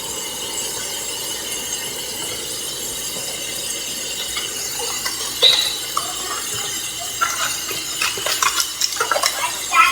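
Light clinks of cutlery against dishes over a steady hiss. A few sharp clinks come from about halfway through, growing more frequent near the end.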